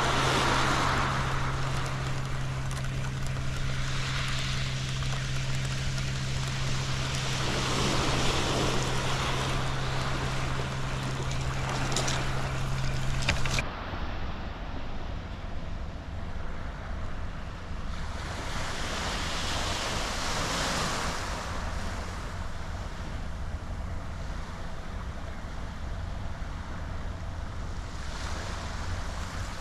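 Small waves washing onto a shingle beach, swelling and falling back every few seconds, with some wind on the microphone. A steady low hum runs under the first half and stops abruptly about halfway through.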